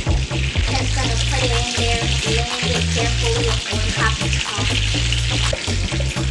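Hot oil sizzling and crackling as breaded chicken fries in a skillet, a steady hiss dotted with fine pops. Music with a stepping bass line plays underneath.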